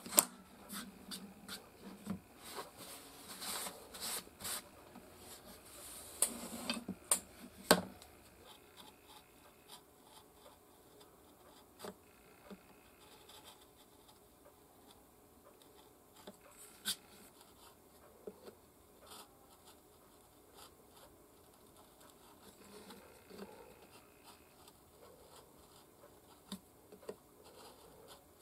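A small hand carving knife working a wooden case by hand. There are several seconds of rustling, scraping and sharp clicks as paper scraps are scraped away. Then quieter, light scraping with a few small ticks as the blade cuts fine chips along the lines of the carved crest.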